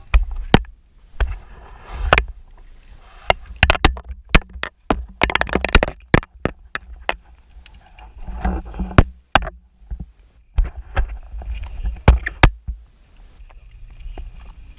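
Irregular knocks, clicks and heavy thumps, some in quick clusters, with a short quieter gap about two-thirds of the way through.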